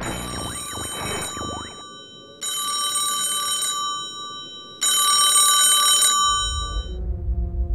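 A telephone ringing three times, each ring lasting about a second with a short pause between. Near the end a low, rumbling music drone comes in.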